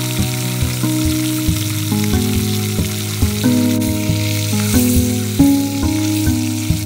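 Hot oil sizzling steadily around unpopped popcorn kernels in a small metal wok over a wood fire, stirred now and then with a metal skimmer. Gentle instrumental music plays along.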